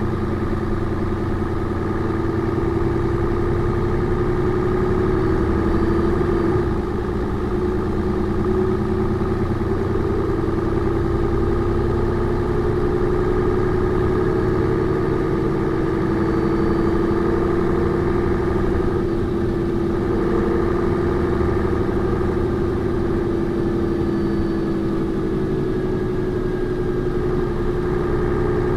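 Engine of a 1996 Mercedes-Benz O405N2 city bus running steadily, a continuous hum whose pitch drifts slightly up and down, with a brief dip in level about seven seconds in.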